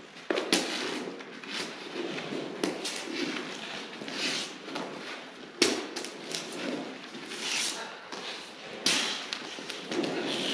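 Hands working stiff steel cable strands: irregular clinks, knocks and rustling, with a few sharper knocks about half a second, five and a half and nine seconds in.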